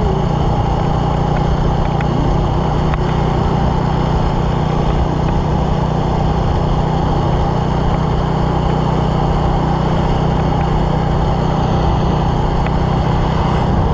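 Motorcycle engine running steadily at cruising speed with a constant drone, mixed with wind rushing over the microphone, heard from the rider's seat.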